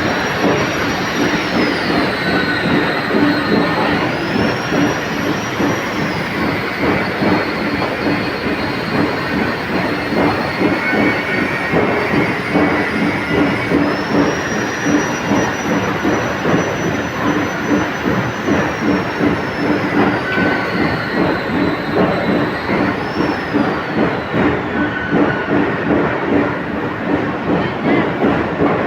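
Heavy machinery running steadily, with a fast pulsing rumble and a high whine that rises and falls several times.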